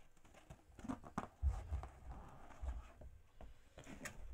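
Faint handling noises: scattered soft clicks and rubbing, with low thuds about one and a half seconds in and again near three seconds. No balloon pop is heard.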